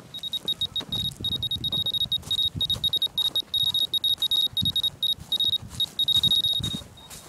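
Handheld radiation dosimeter beeping with a high, thin tone: many short beeps a second in irregular runs, sometimes merging into longer tones, as the counter sounds off detected radiation. Dull handling bumps come in underneath.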